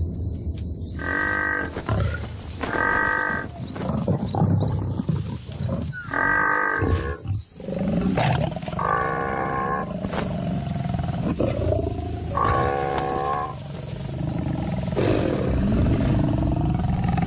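Lions growling over a freshly caught blue wildebeest, a low continuous rumble. The wildebeest bellows about six times, each call drawn out for roughly a second.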